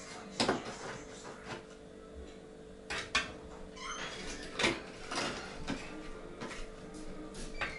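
Scattered scrapes, taps and knocks of hand work on a brick stove being rebuilt, over a faint steady hum.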